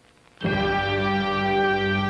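A short gap, then a synthesized alarm tone starts about half a second in and holds as one steady, buzzy note rich in overtones.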